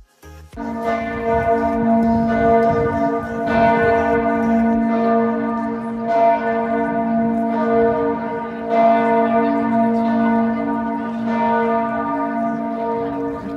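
Church bells of St. Stephen's Basilica ringing loudly in a steady peal, a fresh stroke a little more often than once a second, starting about half a second in.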